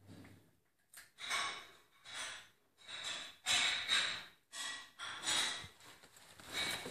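Miniature poodle eating noisily: a string of short chewing and snorting sounds, about one a second.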